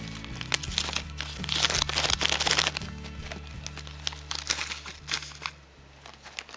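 Plastic snack wrappers crinkling and rustling as packets are handled, over steady background music; the crinkling thins out near the end.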